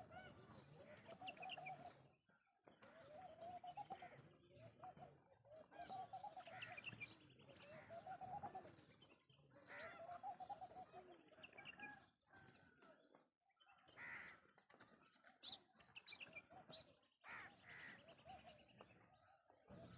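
Birds calling: a faint, low, arching call repeated about every two seconds, with scattered higher chirps, and a couple of sharp clicks about three-quarters of the way through.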